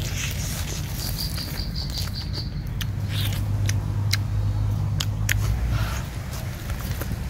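Biting and chewing on a fire-roasted whole chicken, with scattered sharp crunchy clicks, over a steady low rumble. A high steady tone sounds for about a second and a half, starting about a second in.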